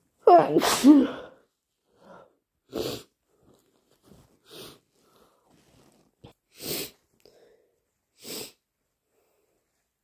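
A person sneezes loudly once, with the voice gliding in pitch, about half a second in. Several short sniffling breaths follow at intervals. The nose is stuffy and sensitive from a cold.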